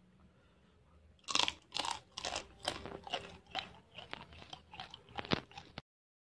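Someone biting into and chewing crisp deep-fried grasshoppers: a loud first crunch about a second in, then about two crunches a second, stopping suddenly near the end.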